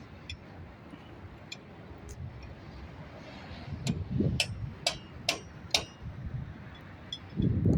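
Hand tools clinking on metal while a bulldozer's hydraulic pipe is being changed: about five sharp clicks in quick succession a few seconds in, over low background noise, with a louder, fuller noise starting near the end.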